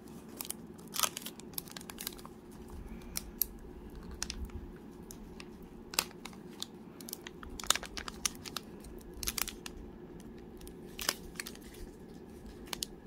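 Foil trading-card pack wrapper crinkling and a stack of cards being handled and set down, in irregular sharp crackles and taps over a faint steady hum.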